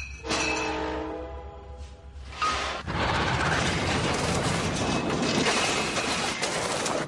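Glass bottles ringing and clinking near the start, then from about three seconds in a loud, steady rattling clatter of a drinks cart loaded with glass bottles being pushed along fast.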